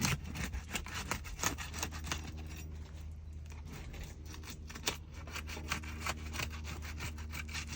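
Roofing pry bar scraping under asphalt shingles and breaking their sealant strips loose: a run of irregular short scrapes and crackles, with a steady low hum underneath.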